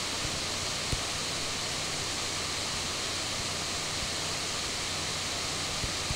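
Steady microphone hiss with a faint low electrical hum, broken by a few faint short clicks.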